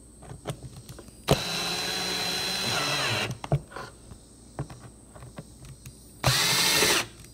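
Power drill driving Torx 9 screws to fasten a subwoofer speaker into its plastic console box. The drill runs twice: a steady whine of about two seconds a little over a second in, then a shorter run near the end. Light handling clicks come between the runs.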